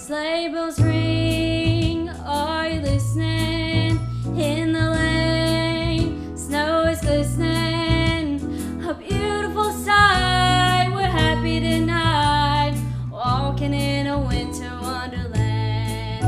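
Music: a woman singing a melody over instrumental accompaniment, with a steady bass and a regular beat.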